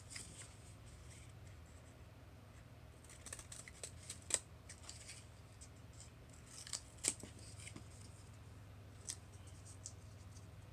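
Blue-handled curved shears snipping and clicking in short, separate strokes, the two loudest about four and seven seconds in.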